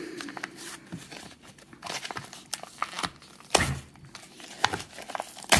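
Cardboard lighter packaging being torn open by hand: irregular crinkling and ripping, with a couple of sharper snaps, the loudest about three and a half seconds in and another near the end.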